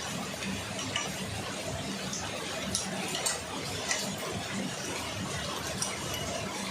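Metal tools and bicycle parts clicking and clinking now and then during disassembly, about half a dozen sharp clicks over a steady hiss and low hum.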